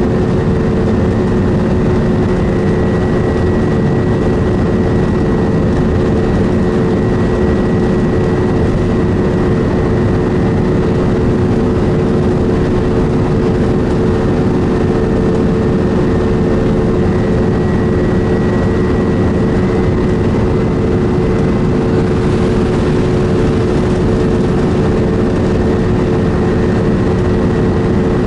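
Alexander Dennis Enviro400 Trident double-decker bus under way, heard from inside the passenger saloon: a steady engine and drivetrain drone with a constant whine over a low rumble, with no change in pitch through the whole stretch.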